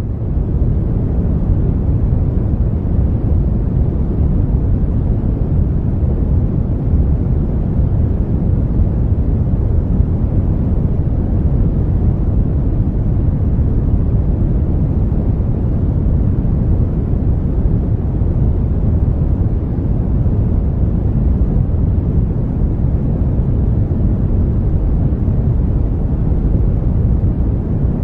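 Synthetic brown noise: a steady, deep, even rush of noise, heaviest in the bass and fading toward the treble.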